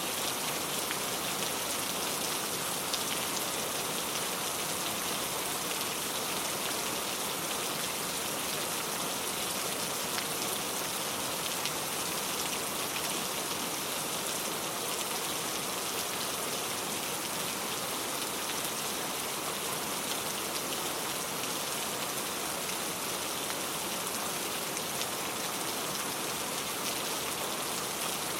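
Steady rain falling on a surface, an even hiss of many fine drops with no change in intensity.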